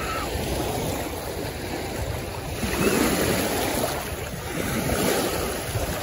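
Small waves washing in over sand at the shoreline, swelling about three seconds in and again near the end, with a low rumble of wind on the phone's microphone.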